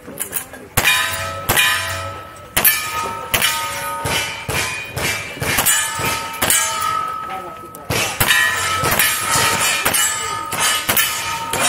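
A rapid string of gunshots, roughly one to two a second, each followed by steel targets ringing with a clang. There is a short lull about seven seconds in.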